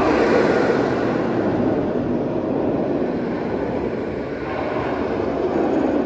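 Steel launched roller coaster train running along its track, a steady rumbling roar that dips slightly partway through and swells again near the end.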